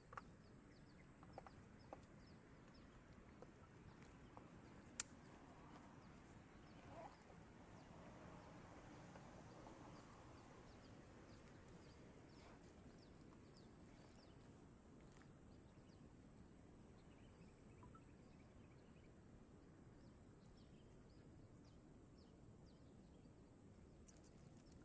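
Near silence: faint outdoor ambience with a steady high-pitched buzz that drops out and resumes a few times, and one sharp click about five seconds in.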